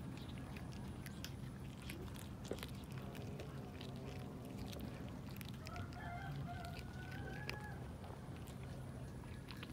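A chicken calling twice, each a long wavering call of about two seconds, over the small wet clicks of a cat chewing raw fish.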